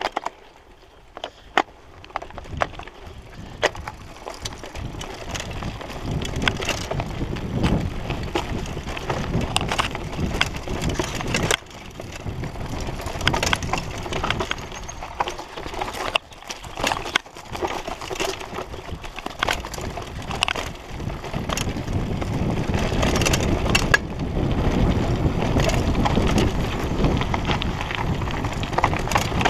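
Mountain bike riding a dirt singletrack: tyres rumbling over dirt and stones, with the bike rattling and clacking over bumps. It is quiet for the first couple of seconds, then grows louder as the pace picks up.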